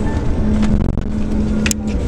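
Scania K410 diesel coach under way: a steady engine and road rumble with a held tone. About three-quarters of the way through comes one brief sharp hiss or click, and the tone stops near the end.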